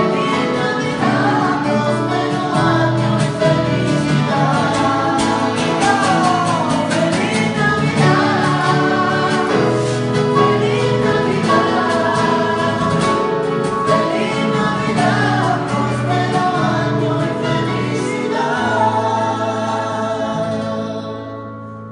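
Mixed male and female voices singing a flamenco fusion song together, accompanied by strummed acoustic guitar and a Yamaha electronic keyboard. Near the end the music settles on a held low chord and fades.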